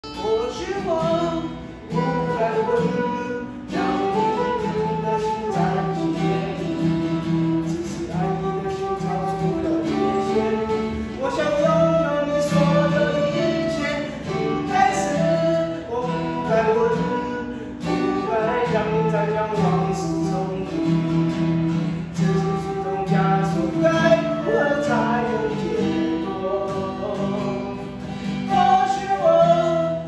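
A man singing a song while playing a round-backed acoustic guitar.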